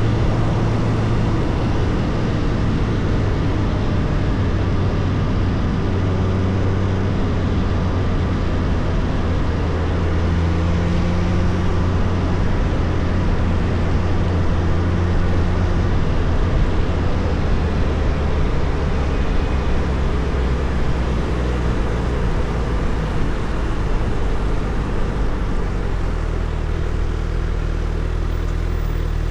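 Suzuki Hayabusa's inline-four engine running at steady cruising revs under wind noise, its pitch drifting gently up and down with the throttle and settling lower near the end.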